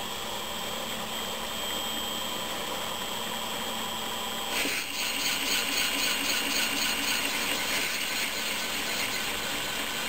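Small metal lathe running, its spindle turning a mandrel with a bronze blank. About halfway in the tool bit starts cutting the bronze face, adding a louder, brighter cutting noise with an even repeating pulse over the machine's steady hum.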